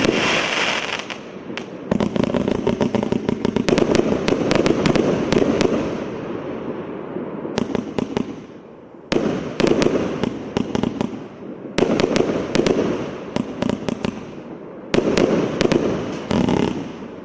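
Multi-shot consumer firework cake firing rapid volleys of shots, with crackling and popping, that ease off briefly a couple of times before the next volley starts.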